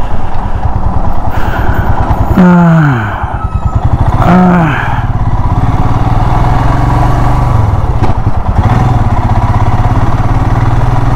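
Royal Enfield Himalayan's single-cylinder engine running as the loaded motorcycle rolls through a toll lane and pulls away. Two short pitched sounds cut in about two and a half and four seconds in, the first falling in pitch.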